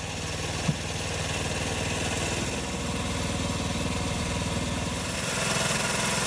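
Small engine of a miniature railway locomotive running steadily. Its note changes about two and a half seconds in and gets louder just after five seconds, with one light tap about a second in.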